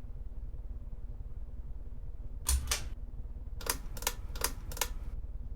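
Hampton Bay Grayton ceiling fan running with a low, steady hum. Sharp clicks come over it: a close pair about halfway through, then four clicks about a third of a second apart.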